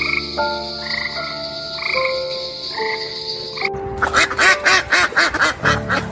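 A frog calling with a steady high trill. About four seconds in, ducks quack in a rapid, harsh series that is the loudest part, then it stops.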